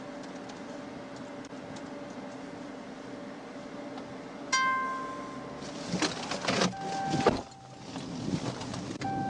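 Electronic beep tones over a steady hum: one beep about halfway through, then a few sharp clicks and a longer, higher steady beep that stops and comes back near the end.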